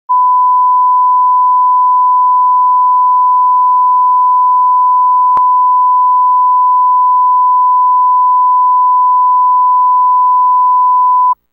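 Broadcast line-up test tone that goes with colour bars: one loud, steady, pure beep at a single constant pitch, cutting off suddenly near the end. A single short click sounds about halfway through.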